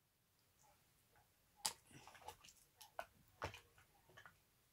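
Faint, scattered clicks and taps of small plastic makeup items, such as lipstick tubes and their caps, being handled and set down. There are about half a dozen, starting a second and a half in.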